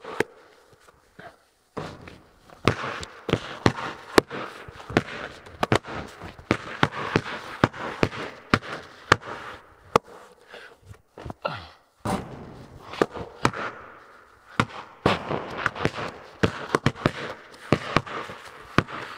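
Basketballs bouncing on a bare concrete floor, a run of sharp irregular thuds, at times several a second, echoing in a large steel-walled barn.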